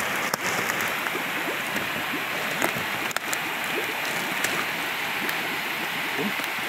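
Steady rush and splashing of water in a tilapia tank where the fish are crowded in a net, with bubbling and two sharp clicks, one just after the start and one about three seconds in.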